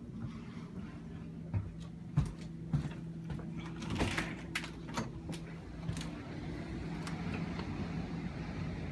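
High wind gusting, with scattered knocks and rattles, several sharp ones in the first six seconds, over a steady low hum.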